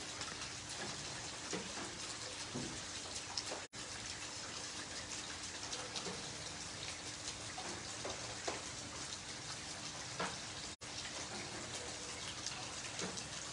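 Heavy rain falling on wet concrete pavement and puddles: a steady hiss dotted with the patter of individual drops. The sound cuts out for a split second twice.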